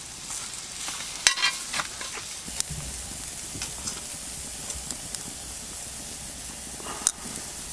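Brussels sprouts and bacon sizzling in a frying pan, with a few scrapes and clicks of a utensil stirring them.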